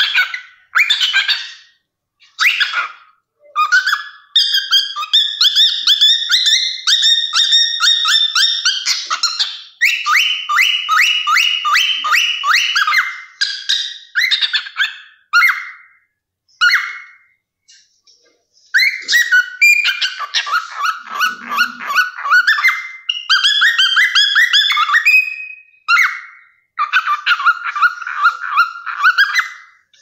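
Cockatiel singing and chattering: fast runs of repeated warbling notes in phrases with short pauses between them, and a longer lull about halfway through.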